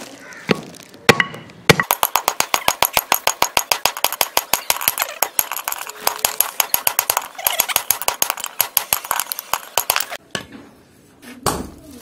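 A hand hammer striking red-hot steel held in tongs on a steel sledgehammer head: a fast, even run of sharp metal-on-metal blows, about six a second, starting about two seconds in and stopping near ten seconds. A few single strikes come before and after the run.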